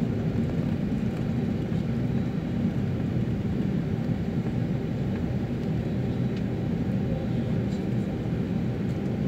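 Airliner engine and cabin noise heard from inside the cabin while the plane moves on the ground: a steady, deep rumble that holds level without building up.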